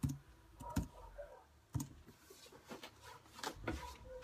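A handful of separate clicks at a computer keyboard and mouse, spaced about a second apart, as a password is typed and Login is clicked.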